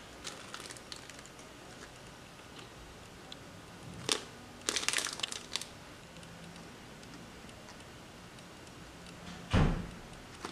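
Plastic and foil food sachets from a self-heating hot pot kit crinkling as they are handled, with a sharp crack about four seconds in and a dense run of crinkling just after. A low thump near the end is the loudest sound.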